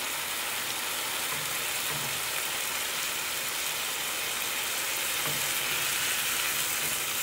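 Chicken and chopped red onion sizzling steadily in hot oil in a frying pan while a spatula stirs them.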